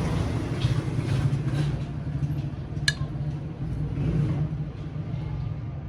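Steady low machine hum, with one sharp click about three seconds in.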